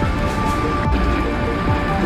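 Background music with steady held tones over a deep bass beat.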